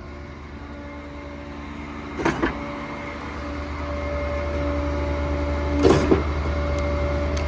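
Putzmeister concrete pump truck running under its own power, with the Mack diesel and hydraulics humming steadily and the hopper agitator on. There are two short clunks, about two seconds and six seconds in, and the sound slowly grows louder through the second half.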